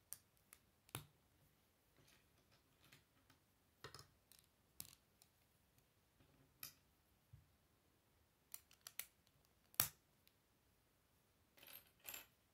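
Plastic Lego plates being pressed and snapped together by hand: sparse, irregular sharp clicks, one much louder than the others.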